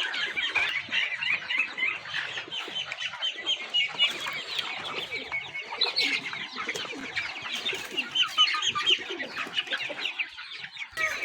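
A flock of desi chickens clucking and calling together, a dense chatter of many short, high calls overlapping without a break.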